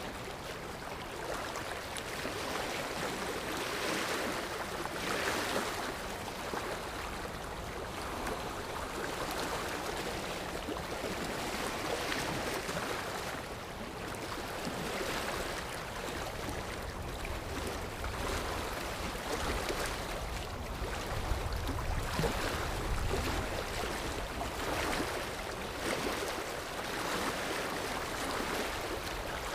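Sea waves washing ashore in a steady rush of surf that swells and eases every few seconds.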